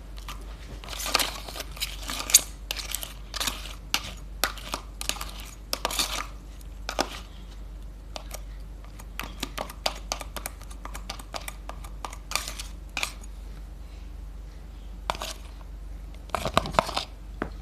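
Clear glitter slime being squeezed and stretched by hand, giving irregular crackling pops and clicks in bunches with short pauses between.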